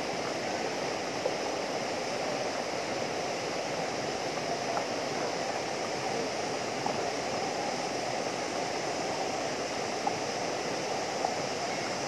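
Small waterfall cascading over rock into a pool: a steady rush of falling water.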